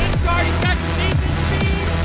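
Electronic dance music with a heavy, repeating bass beat.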